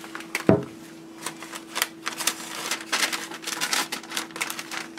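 Parchment paper folded and handled around a pile of loose dried herbs, crinkling in quick, irregular crackles, over a faint steady hum.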